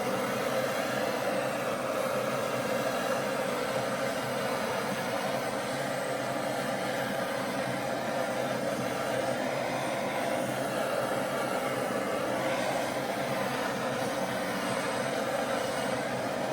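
Handheld gas torch burning steadily, an even rushing hiss of flame, passed over wet silicone-oil acrylic pour paint to bring up cells.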